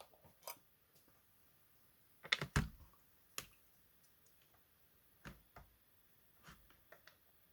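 Scattered light clicks of laptop keys or mouse buttons being pressed, one at a time, with a louder double click about two and a half seconds in.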